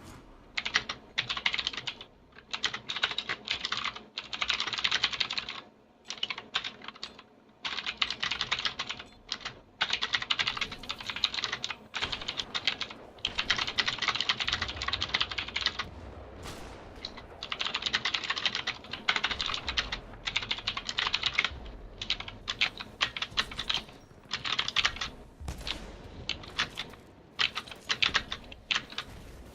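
Mechanical keyboard with clicky Gateron Blue switches being typed on fast, in bursts of rapid clicking separated by short pauses.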